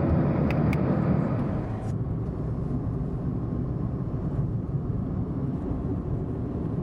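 Car on the road: steady low engine and tyre rumble, with two light clicks about half a second in.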